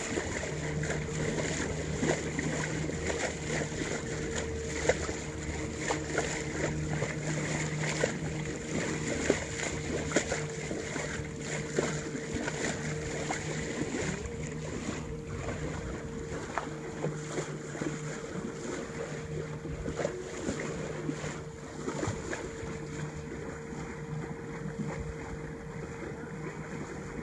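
The RL28 yacht running under motor: a steady engine hum under the rush and splash of water along the hull.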